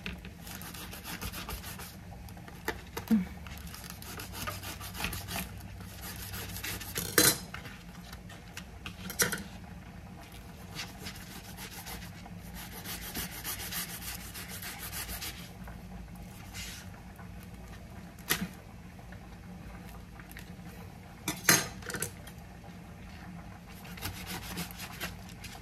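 Chef's knife slicing through a raw skate wing and its soft cartilage on a paper-covered cutting board: repeated rasping strokes of the blade, with a few sharp knocks scattered through.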